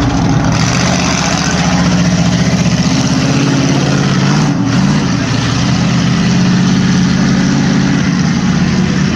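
Bear Foot monster ride truck's engine running loud as the truck carries passengers, its pitch shifting up and down about halfway through as it is driven on.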